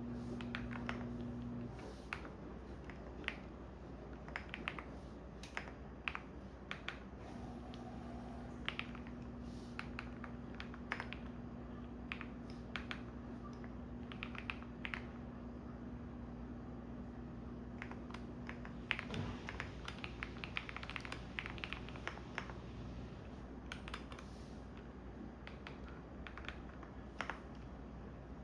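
Computer keyboard typing: scattered keystrokes with a quicker flurry about two-thirds of the way through. Underneath, a washing machine runs with a low motor hum that cuts out about two seconds in, comes back around seven seconds, and stops again around nineteen seconds.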